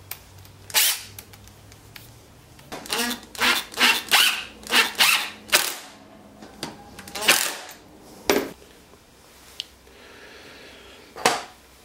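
A string of short, sharp knocks and clicks, about a dozen spread irregularly, from small wooden parts being handled and screwed together.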